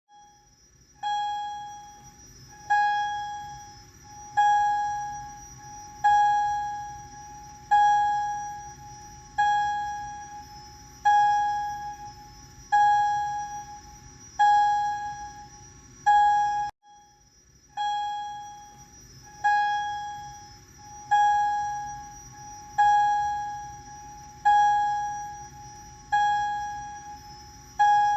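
Wheelock fire alarm sounding its chime tone after being tripped: a single-pitched electronic chime struck about every 1.7 seconds, each note ringing and decaying before the next. There is a brief gap a little past halfway.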